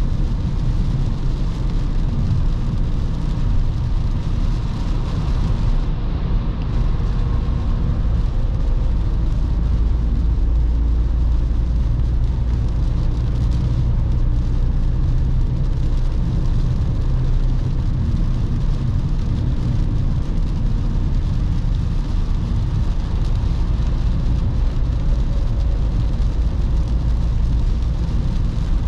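2021 Volkswagen Passat B8 with the 2.0 TDI diesel, driving on a wet road: a steady, loud rush of tyre and road noise over a low engine hum.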